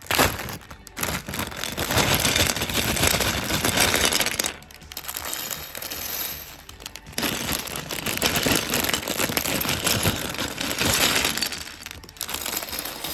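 Crinkling and rustling of a plastic LEGO parts bag being handled and torn open, with small hard clicks of plastic pieces; it eases off for a couple of seconds a little after the middle, then starts again.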